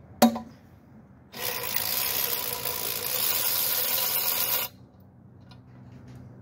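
A sharp click, then a cordless power driver with a socket runs steadily for about three seconds and stops abruptly, backing out a bolt on the air-filter housing.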